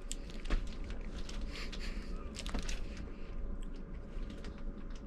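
A person chewing a mouthful of peanut-and-caramel candy bar, with scattered small crunches from the peanuts, over a low rumble.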